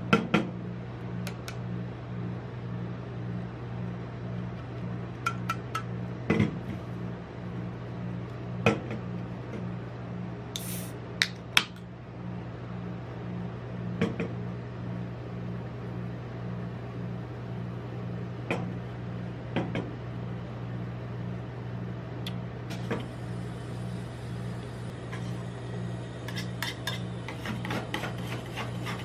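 A rolled-ice-cream cold plate's refrigeration unit hums steadily, with scattered clicks and taps of an aluminium soda can on the steel plate. About eleven seconds in comes a short fizzing hiss as the can is opened. From about twenty-three seconds on, metal spatulas scrape and tap quickly on the steel plate, chopping the poured soda as it freezes.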